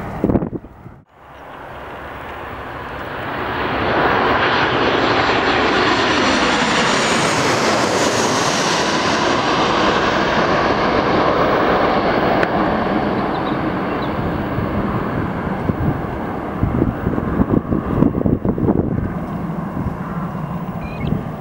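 Boeing 737-800 airliner with CFM56 turbofans passing low overhead on final approach. The jet noise builds to a loud, steady level, with a high whine that falls in pitch as the aircraft goes over. Near the end it fades as the aircraft moves off toward the runway, and gusts of wind on the microphone come to the fore.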